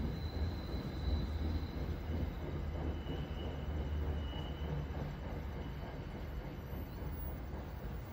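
NJ Transit commuter train rolling along the rails past a station platform: a steady low rumble that eases slightly, with faint thin high squeals in the first half.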